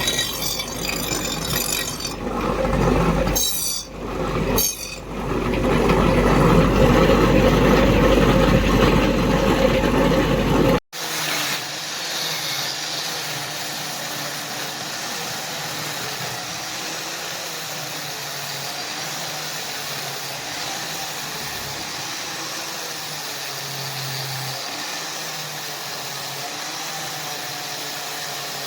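A loud, steady machine noise with a deep hum, dipping briefly twice, cut off sharply about eleven seconds in. After it comes a quieter steady noise.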